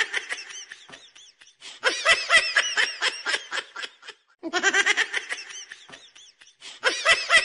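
Recorded laughter, bursts of rapid 'ha-ha' laughs that fade out and start again about every two and a half seconds, like a looped laugh track.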